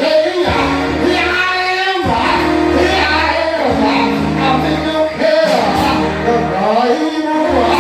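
Gospel singing with instrumental accompaniment: sung voices with vibrato over steady held instrumental chords.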